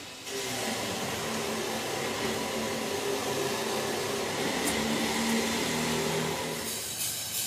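A motor-driven machine or power tool whirring steadily, starting just after the beginning.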